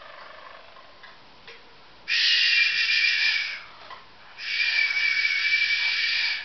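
Harzer roller canary singing two long, even rolls, the first about a second and a half, the second about two seconds, with a short break between. Fainter song is heard in the first second.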